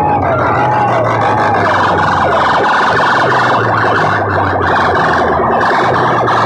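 Loud DJ sound-system playback of a siren-style wailing effect over heavy bass. The wail repeats about every half second, dipping and rising, for the first couple of seconds, then merges into a dense buzzing blare.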